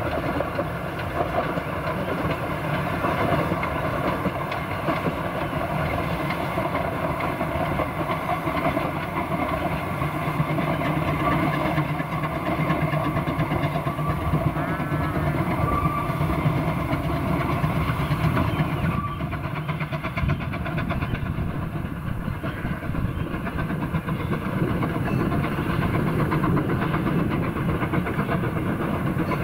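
Narrow-gauge steam locomotive hauling a train of coaches, running steadily with no break.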